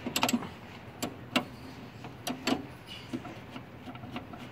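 A metal wrench clicking and clinking on a brake line flare nut at the brake master cylinder as the fitting is worked loose: a string of sharp metallic clicks, the loudest in the first two and a half seconds.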